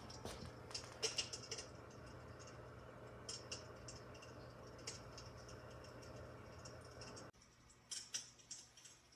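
Electric fireplace insert playing its simulated fire-crackling sound: soft, irregular crackles and pops. A steady low hum underneath stops suddenly about seven seconds in, while the crackling goes on.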